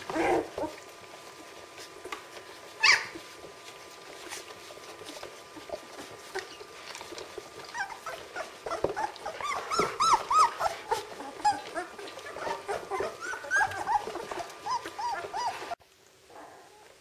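Czechoslovakian wolfdog puppies, sixteen days old, squealing and whimpering as they jostle at their mother's teats: a few sharp squeals early on, then a busy run of many short high squeaks from about halfway. It stops abruptly shortly before the end.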